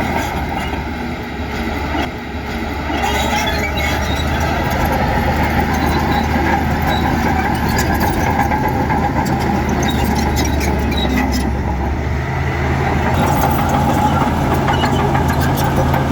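Heavy earthmoving machine's diesel engine running steadily under work, with scattered clanks and rattles.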